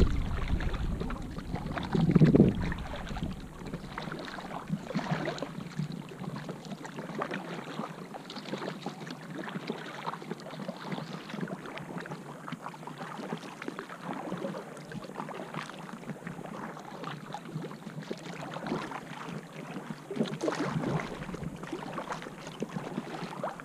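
Kayak paddle strokes and water splashing and lapping against the hull, heard close up. A gust of wind buffets the microphone about two seconds in.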